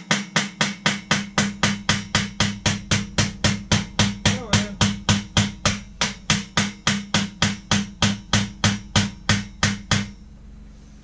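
Small hammer tapping steadily, about four blows a second, driving pins into a Black & Decker Workmate 536's frame. The hammering stops near the end.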